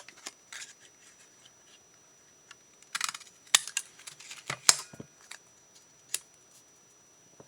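Scissors snipping cardstock, with paper being handled between the cuts: short rustles and a few sharp snips, the loudest falling a little past the middle.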